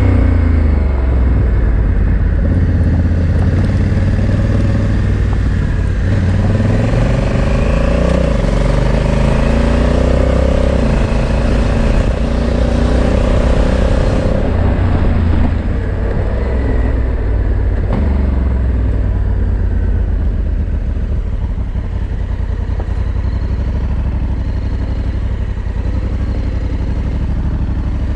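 Adventure motorcycle engine running as the bike is ridden along a gravel track, its revs rising and falling a few times midway.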